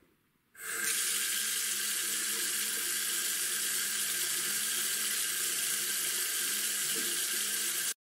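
Water running from a single-lever mixer tap into a bathroom sink: a steady rush that starts about half a second in, when the lever is opened, and stops abruptly at the end.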